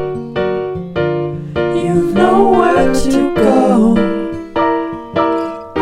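Background music: piano or electric piano playing chords in a steady rhythm, with a sung melody over it.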